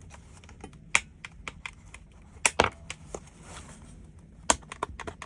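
Irregular sharp plastic clicks and taps as the parts and buttons of a car's dashboard light control switch panel are handled, a few of them louder than the rest.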